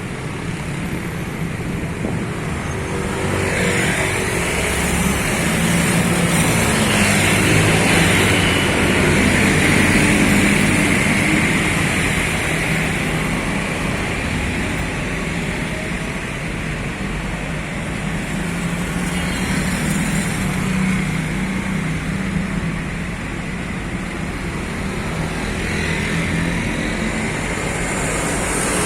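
Road traffic on a main road: buses and other vehicles passing, a steady drone of engines and tyres that swells about a third of the way in and then eases off.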